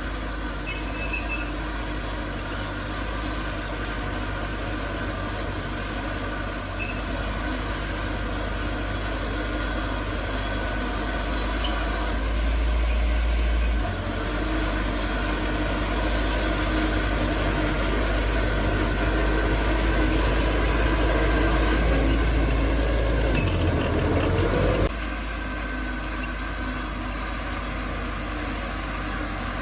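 Diesel engine of heavy earthmoving machinery, most likely a bulldozer, running under load with a steady low rumble. It grows louder about halfway through, rises in pitch briefly near the end, then drops suddenly to a quieter running sound.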